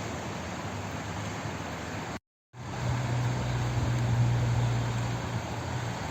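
Steady flowing water, an even rushing hiss, cut by a brief dropout to silence a little over two seconds in. A low hum runs under the water after the dropout.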